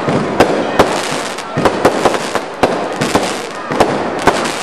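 Aerial fireworks bursting in quick succession: about a dozen sharp bangs at uneven intervals over a continuous rushing noise.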